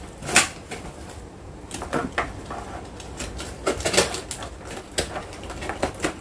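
Utility knife cutting through packaging tape on a cardboard box while the tape and card are pulled and torn open: a series of short, irregular crinkles and cuts.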